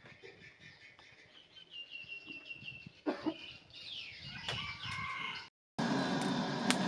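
Chickens calling, with a rooster crowing, in the background. After a brief silent gap about five and a half seconds in, a loud steady machine-like drone starts.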